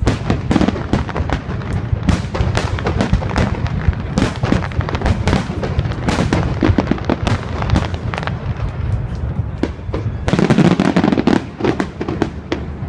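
Fireworks display going off: a rapid, continuous run of bangs and crackles over a steady low rumble, with a denser flurry of crackling about ten seconds in.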